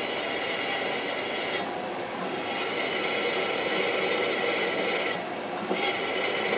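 Milling machine drilling a mounting hole in a bellhousing with a twist drill: a steady cutting and rasping sound over the spindle's whine. The higher rasping drops out briefly twice, about two seconds and five seconds in.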